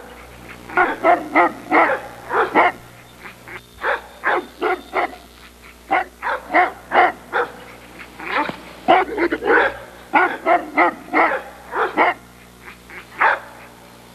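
Neapolitan Mastiff barking repeatedly, in runs of several quick barks with short pauses between them.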